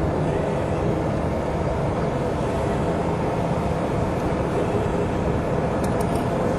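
Steady road and engine noise of a car cruising on an expressway, heard from inside the cabin: a constant low rumble and hum with tyre noise over it.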